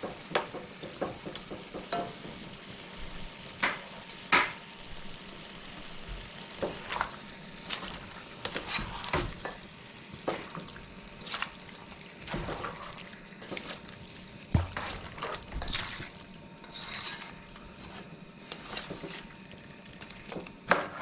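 Food sizzling in a hot pot while a spoon stirs in tomato paste. The spoon scrapes and knocks against the pot in irregular clicks.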